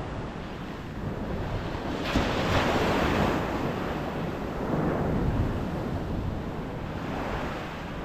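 Atlantic Ocean surf on a beach: steady wash of waves, with one wave breaking and rushing in loudest about two to three seconds in, then fading. Wind rumbles on the microphone underneath.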